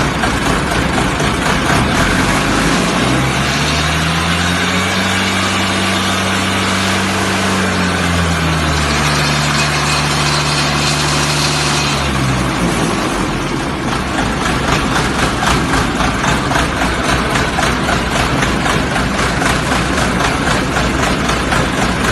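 Diesel engine of a concrete pump running just after start-up. A few seconds in, a deeper hum comes in, rises in pitch, holds, sinks again and stops a little past halfway; the engine then runs on with an even, rapid pulsing.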